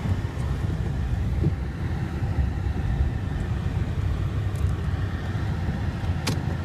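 Honda Ridgeline's 3.5-litre V6 running at low speed as the truck backs through snow with its VTM-4 four-wheel-drive lock engaged, heard inside the cab as a steady low rumble. A single sharp click near the end.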